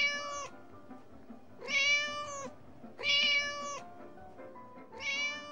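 A domestic cat meowing four times at fairly even intervals; each meow is under a second long and holds a steady pitch.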